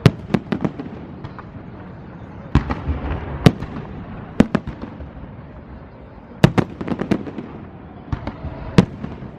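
Fireworks salute going off: a string of sharp bangs and cracks at irregular intervals, some in quick clusters, over a continuous crackle and rumble.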